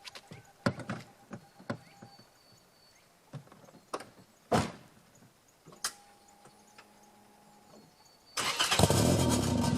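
A few scattered clicks and knocks over low background, then about eight seconds in the Honda Civic's D15B2 1.5-litre four-cylinder engine starts and runs loudly.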